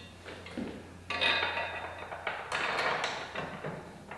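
Metal clinking and rattling as a motorcycle luggage rack is handled against the bike and its mounting bolts are threaded in by hand; irregular clanks and scrapes start about a second in.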